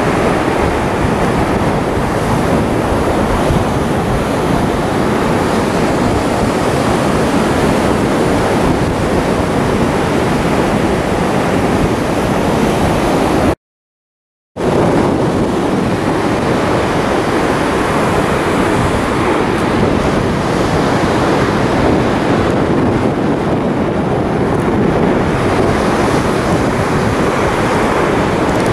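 Steady rush of wind buffeting the microphone, mixed with shore surf, broken by about a second of silence halfway through.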